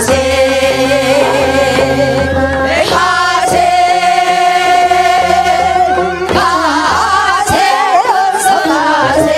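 A group of women singing a Korean folk song (minyo) together into microphones over amplified instrumental backing, with long held notes sung with vibrato.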